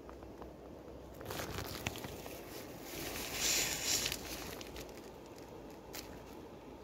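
Tent nylon rustling and crinkling as the camera is handled against the tent fabric. It is loudest from about one to two seconds in and again from three to four seconds, with a single click near six seconds. A steady low hiss runs underneath.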